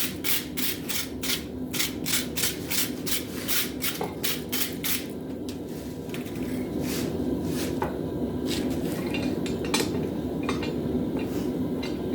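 Hammer blows on a guillotine fuller tool, fullering hot steel for a hammer head: a fast, even run of about three strikes a second that stops about five seconds in, followed by a few scattered lighter knocks. A steady low rumble runs underneath.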